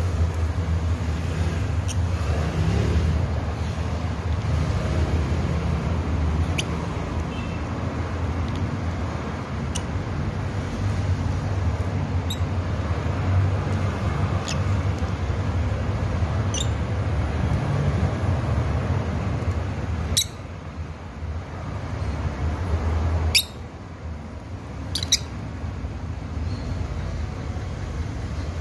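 Steady low rumble with short, sharp, high chirps from lovebirds scattered through it. The rumble drops away abruptly twice near the end, each time after a loud click.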